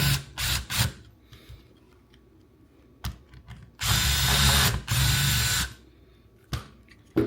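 Power drill-driver running in short bursts, then one longer run of about two seconds, working the screws of the steering-wheel button panels. A sharp click near the end.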